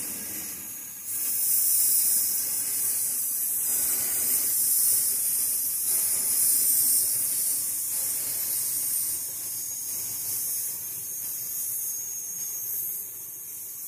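Miniature live-steam locomotive, a model of the narrow-gauge engine Gowrie, standing with steam hissing steadily from around its cylinders. The hiss grows louder about a second in and eases off toward the end.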